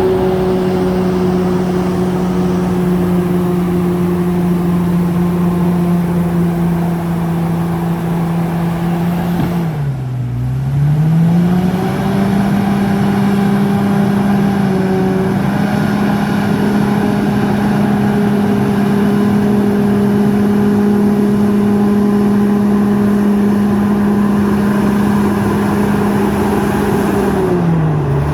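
Komatsu D68ESS bulldozer's diesel engine running at high revs, with its pitch dropping sharply and climbing back about ten seconds in and again near the end.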